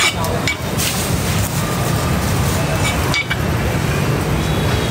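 Steady low background rumble in a busy roast-meat shop, with a few sharp knocks and clinks from the wooden chopping block and plates near the start and again about three seconds in.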